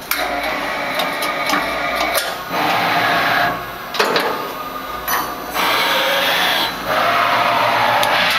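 Miyano TSV-21 CNC drilling and tapping machine running its cycle: bursts of spindle and axis noise about a second long, broken by brief pauses and sharp clicks.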